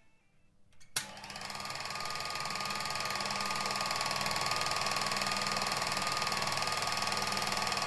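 8 mm film projector switched on with a click about a second in, its mechanism then speeding up to a steady, rapid clatter.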